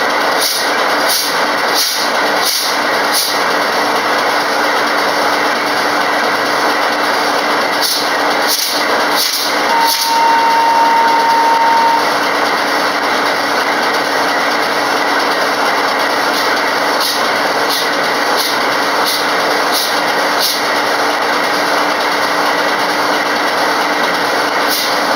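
Loud steady hissing noise, with runs of regular clicks about twice a second near the start, again after about eight seconds and near the end. A steady high beep lasts about two seconds, about ten seconds in.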